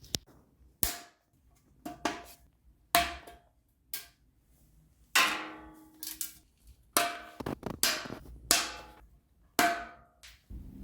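Hammer peening the last rivets on a mild-steel great helm: about a dozen sharp, unevenly spaced strikes roughly a second apart, each with a short metallic ring.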